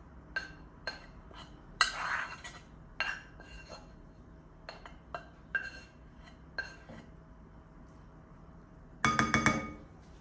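A spatula scraping and tapping sautéed carrot strips out of a nonstick frying pan into a glass bowl, a scattered series of light knocks and short scrapes. About nine seconds in comes the loudest part, a quick run of several ringing clinks of the glass bowl.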